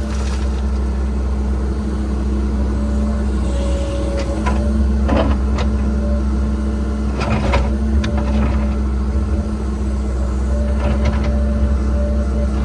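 Cat 306 mini excavator's diesel engine running steadily, with a higher whine that comes and goes as the hydraulics work. Several sharp knocks and scrapes through the middle, from the bucket working among big rocks.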